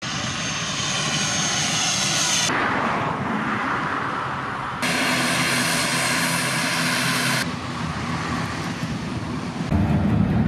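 ATR 42-500's twin turboprop engines and six-blade propellers running, a high whine over a steady drone, first on approach and then while taxiing, with the sound changing abruptly between stretches. Music starts near the end.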